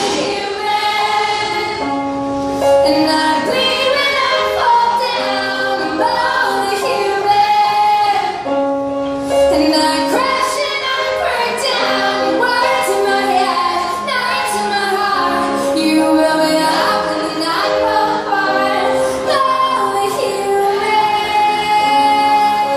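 A woman singing live to her own piano accompaniment.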